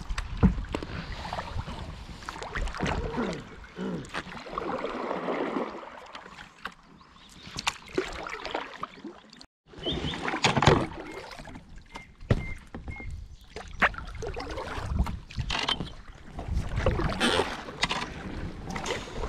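Kayak paddles dipping and pulling through shallow river water: irregular splashes and drips over steady water and wind noise, with a brief break a little over halfway through.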